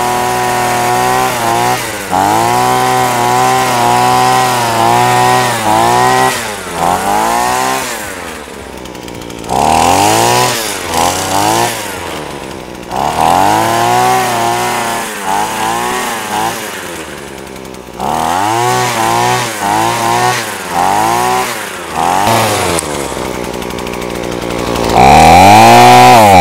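Small petrol engine of a Hecht multi-function pole hedge trimmer, revving up and down in repeated throttle bursts, sagging toward idle between them, as the extended cutter bar trims a tall hedge. It runs at its loudest, at full throttle, near the end.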